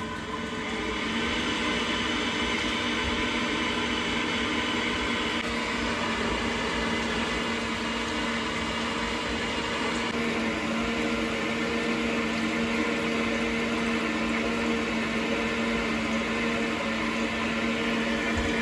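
Gas combi boiler firing for hot water: a steady hum from its fan and burner over the hiss of water flowing through it. It is being test-run for overheating after its plate heat exchanger was flushed.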